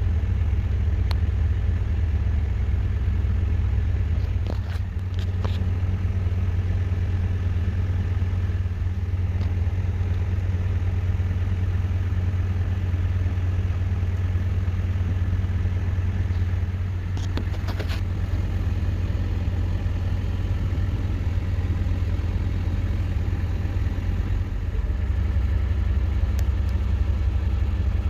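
Vehicle engine idling steadily, with a few brief clicks about five seconds in and again around seventeen seconds in.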